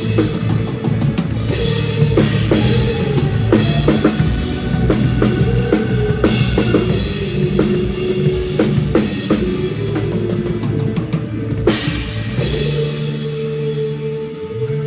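Drum kit played in a band song: kick, snare and cymbals over bass and held chords. About twelve seconds in, a cymbal crash ends the beat and a final chord rings on.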